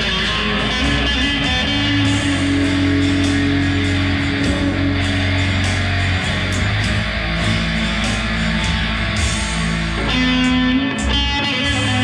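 Electric guitar played through a small amplifier: picked phrases and held notes over a steady low bass. A new run of notes starts about ten seconds in.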